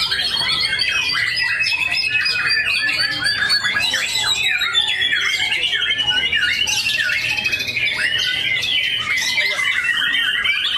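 White-rumped shamas (murai batu) singing continuously, overlapping whistles, trills and harsh chatter. A fast rattling trill runs through the middle.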